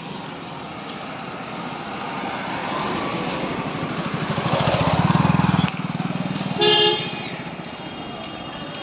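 A small car, a Hyundai i10 hatchback, driving past close by, its engine and tyre noise growing louder to a peak about five seconds in. A short horn toot sounds nearly two seconds later.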